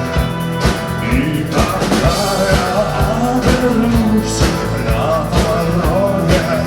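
Live rock band playing: drum kit keeping a steady beat about twice a second under guitars and bass, with a vocalist singing.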